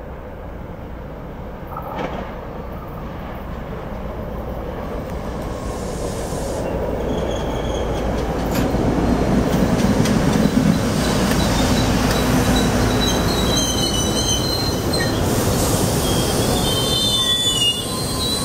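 GE Silverliner IV electric multiple-unit commuter train pulling into a station, its rumble rising as it approaches and passes close by. In the last few seconds, high-pitched squeals come from the wheels and brakes as it slows to a stop.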